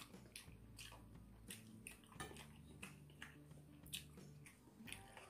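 Faint clicks and scrapes of a metal spoon against a plate while rice is scooped, about a dozen short ticks scattered through, over a low steady hum.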